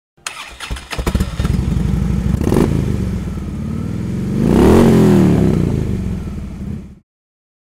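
Moto Guzzi V-twin motorcycle engine running, uneven at first and then steady, with one rev that rises and falls about halfway through. The sound stops abruptly near the end.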